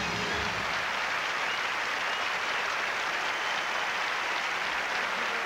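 Studio audience applauding steadily as the host is introduced and comes on stage.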